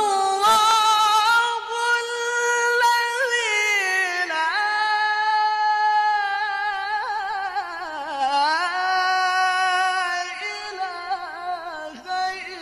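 A male qari reciting the Qur'an in melodic tilawah style: a single voice stretching long, ornamented phrases that slide between notes and dip lowest about eight seconds in.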